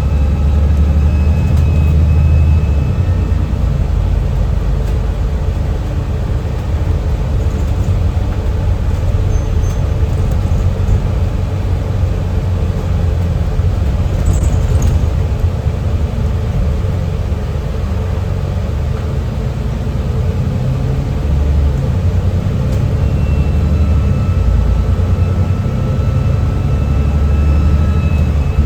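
Alexander Dennis Enviro400 MMC double-decker bus's diesel engine running under way with a steady low rumble, and a thin high turbo whistle near the start and again near the end.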